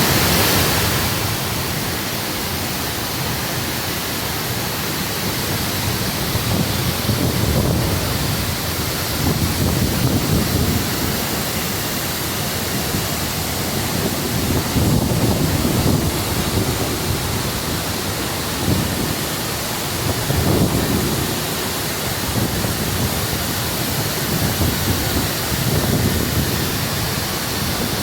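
Waterfall's steady rush of falling water, with low rumbling surges that swell and fade every few seconds.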